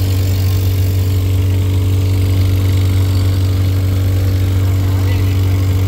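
Motorboat engine running steadily at a constant speed, a loud, even low hum with no change in pitch.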